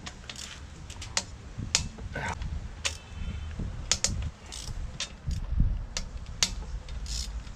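Irregular metallic clicks and knocks of hand tools and loose metal parts being handled while a Mitsubishi 4G93 MIVEC engine's camshafts and cylinder head are taken off, over a low steady rumble.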